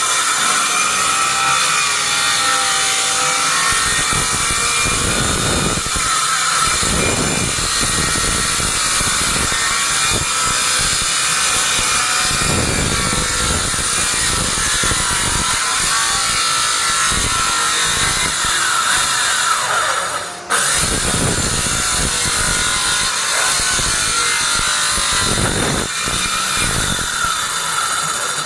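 Circular saw running steadily and cutting wood, its blade whine holding constant while the cutting noise swells every few seconds as the blade bites.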